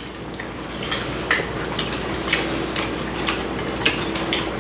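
Scattered light clicks and clinks of utensils against bowls and the hot pot, about eight of them, over a steady background hiss.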